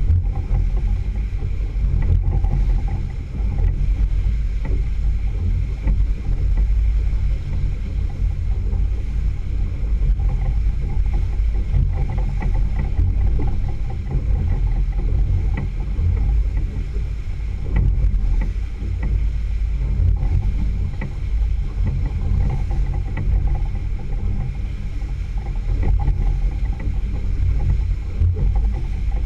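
Single outboard motor running steadily, with water rushing along the hull and wind buffeting the microphone in a constant low roar.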